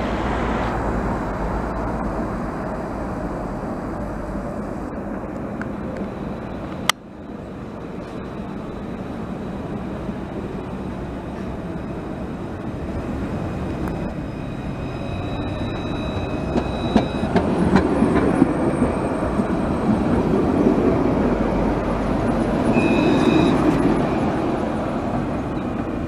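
Low-floor city tram passing on street track: a steady rolling rumble of wheels on rail that grows louder in the second half, with thin high wheel-squeal tones over it. A sharp click about seven seconds in where the recording cuts.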